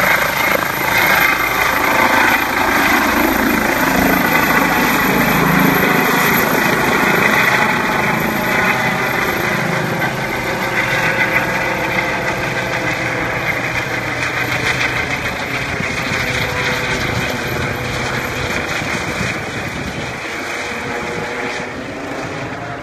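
Eurocopter EC135 twin-turbine helicopter lifting off and climbing away: steady rotor beat with a turbine and shrouded tail-rotor whine, gradually fading as it moves off.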